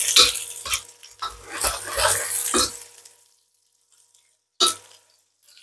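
Sliced aromatics (chilies, shallots, lemongrass, lime leaves) sizzling in a wok as a metal spatula stirs and scrapes them, in two spells over the first three seconds. Then the sizzle dies down, and near the end comes one sharp knock.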